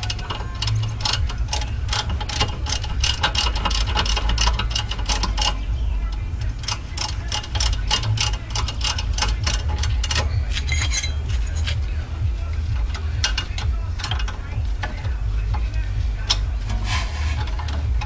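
Rear brake caliper piston of a VW GTI being twisted back into its bore with a wrench, the metal tool working against the piston in runs of quick clicks, about four a second, broken by pauses. A steady low rumble lies underneath.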